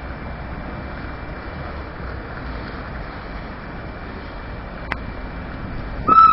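Steady running noise of a narrow-gauge train at a station, with a single click about five seconds in. Near the end a loud, high, steady tone starts suddenly.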